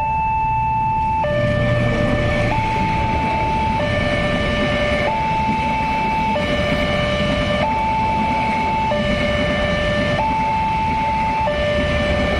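A railway level-crossing warning alarm sounds a two-tone electronic signal, switching between a high and a low tone about every 1.3 seconds. Under it runs the steady rumble and rail noise of a passenger train's carriages passing over the crossing.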